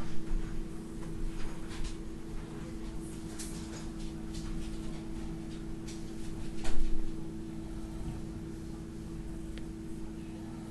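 Scattered knocks and bumps of cupboard doors and kitchen things being moved off to one side, over a steady low hum. The loudest knock comes a little past the middle.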